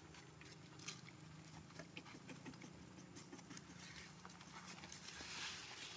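Quiet outdoor ambience with a low steady hum and scattered faint clicks and rustles, one slightly louder click about a second in and a soft rustle swelling near the end.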